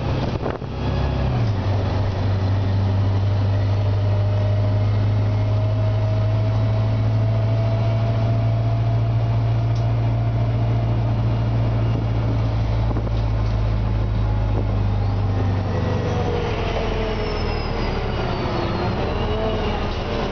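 Detroit Diesel Series 50G natural-gas engine and Voith DIWA transmission of an Orion VII CNG bus, heard from inside the cabin. A steady low drone under load carries a whine that climbs slowly in pitch. Near the end the drone eases and several whines fall in pitch as the bus slows.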